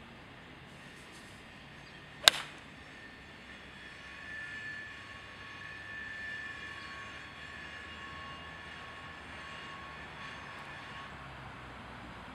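A golf club strikes the ball off the tee about two seconds in: one sharp crack. Afterwards a faint steady hum with a few thin high tones runs for several seconds.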